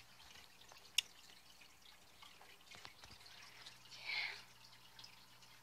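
Quiet small-room tone with a faint steady hum, broken by a single sharp click about a second in and a short breathy hiss just after four seconds in.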